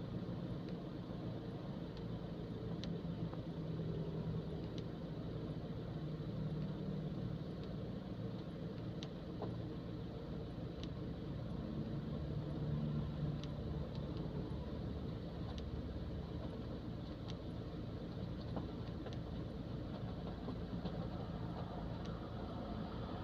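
Strong wind buffeting, with a flag flapping in a steady low rumble and scattered faint sharp ticks.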